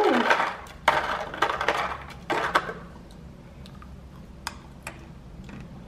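Crispy fried noodle strips tipped from a small plastic cup onto a salad in a clear plastic clamshell container: a few rattling clicks and rustles in the first two and a half seconds, then only a few faint ticks.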